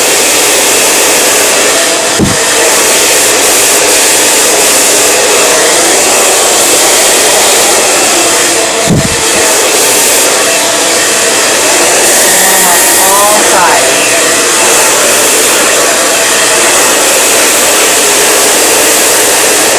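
Handheld salon blow dryer running steadily, blowing air through long hair, with two brief bumps about two seconds and nine seconds in.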